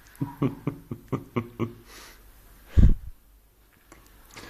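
A person's voice in a quick, even run of about seven short pitched syllables, then a single loud low thump about three seconds in.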